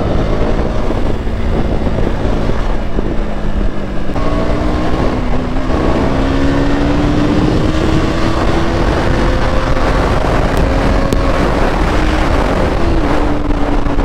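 KTM Duke 200 single-cylinder motorcycle engine running under way, with wind rushing over the helmet microphone. About four seconds in, the engine note steps up and then climbs slowly as the bike speeds up.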